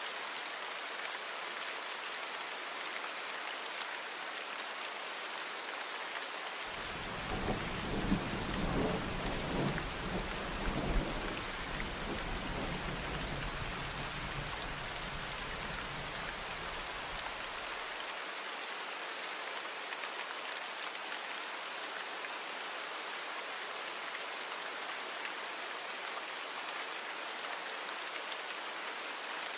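Steady rain falling, with a low rumble of thunder that starts about seven seconds in, crackles loudest for a few seconds, and dies away after about eleven seconds.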